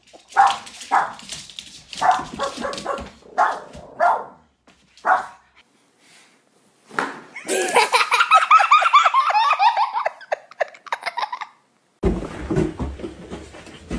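A small dog barking, a run of short barks. Then several seconds of loud, rapid laughter, the loudest part, and a rustle near the end.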